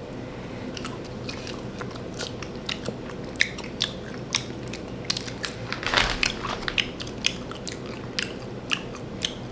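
Crunchy snack being chewed close to the microphone: a string of sharp crackling crunches, with one louder crunch about six seconds in.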